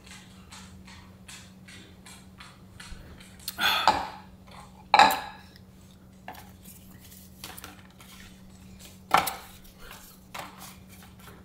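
Close-miked eating sounds: small chewing clicks, with tableware clattering loudly three times, about four, five and nine seconds in.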